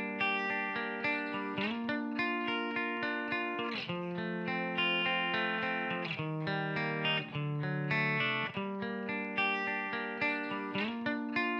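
Electric guitar chord riff played back through a Marshall JMP 2203 amp simulation and a Torpedo Wall of Sound cabinet simulation, switched back and forth between a parallel-compressed version and the raw uncompressed one. The chords ring out and change every second or two, and the phrase starts over near the end.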